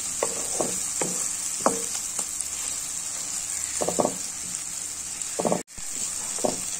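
Tomato and spice masala frying in oil in a dark pan, sizzling steadily while a wooden spatula stirs it, knocking and scraping against the pan about eight times. The masala is cooked down to where the oil separates. The sound cuts out for an instant about five and a half seconds in.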